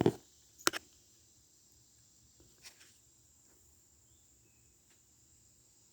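Belt buckles being handled: two sharp clicks in the first second and a fainter click a little before the middle.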